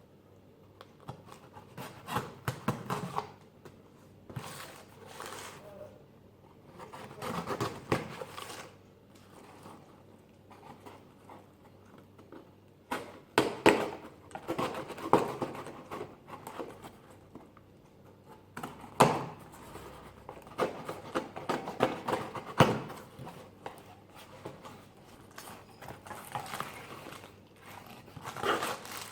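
A cardboard box of art supplies being opened and unpacked: irregular rustling and crinkling of packaging, with handling knocks and a sharp tap a little past the middle.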